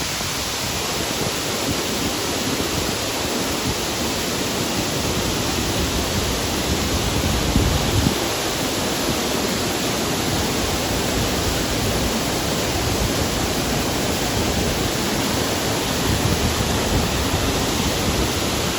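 Waterfall's steady rush of falling water, a dense, even hiss of spray and roar, with a brief low surge about eight seconds in.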